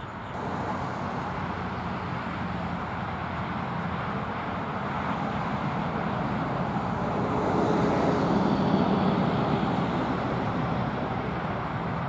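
Road traffic: a motor vehicle passing, a steady rushing noise that grows louder to a peak about eight seconds in, then eases off.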